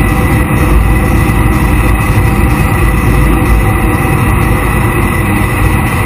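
Jet boat running at speed: a loud, steady rush of engine, wind and water noise, heaviest in the low end.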